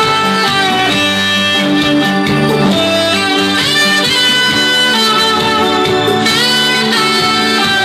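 Instrumental music with no singing: a sustained lead melody, likely guitar, that slides up into new notes a few times over steady backing.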